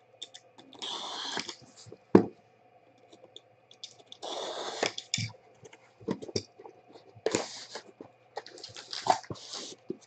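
A sealed trading-card box being cut and opened: two longer rips of the wrapping, about one second in and about four seconds in, among short clicks and knocks of cardboard and packs being handled. A sharp knock about two seconds in is the loudest sound.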